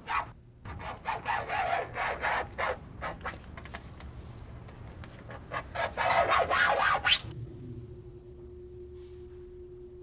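A key dragged hard over a car's painted body panels, scratching the paint in a run of harsh scraping strokes that stops about seven seconds in. A single steady low tone follows.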